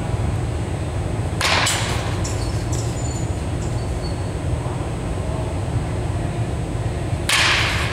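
Baseball bat swung hard through the air twice, each a short whoosh, about a second and a half in and again near the end, over a steady low hum.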